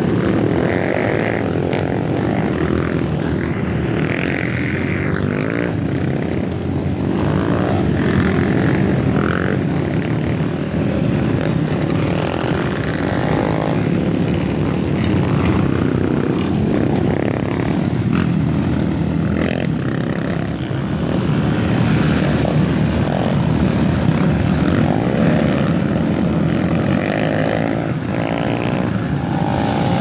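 A string of dirt bikes riding past one after another, their engines running loudly and continuously, rising and falling in pitch as each bike goes by.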